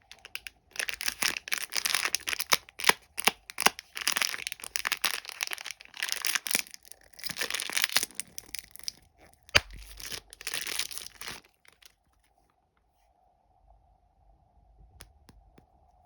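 Plastic candy wrapper being torn open and crinkled in quick rustling bursts, with a few sharp snaps. It stops about two-thirds of the way through.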